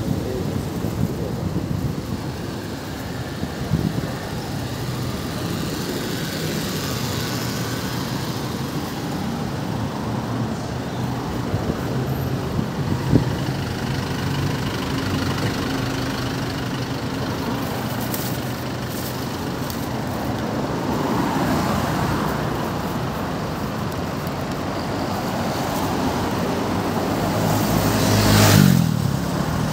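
Steady city street traffic, with cars and motorcycles running past. Near the end, a motorcycle passes close, getting louder and then falling away.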